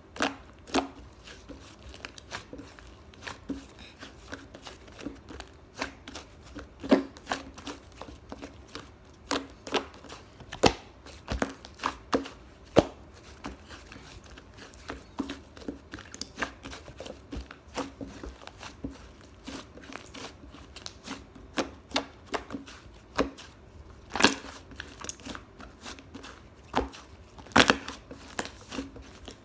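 A squishy toy being squeezed and handled, giving irregular sharp clicks and taps, a few much louder than the rest.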